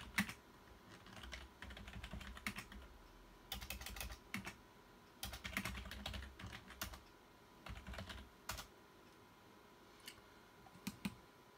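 Typing on a computer keyboard: bursts of quick keystrokes separated by short pauses.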